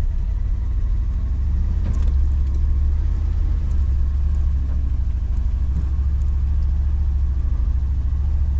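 A car's engine running with a steady low rumble, with a faint click about two seconds in.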